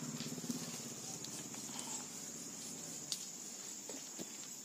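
Crickets chirping steadily in the background, with a few faint scattered clicks and knocks.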